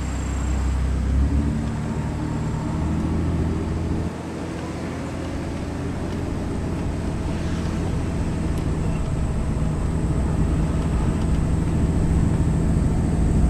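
A vehicle's engine running under load. Its pitch drops about four seconds in, then climbs steadily.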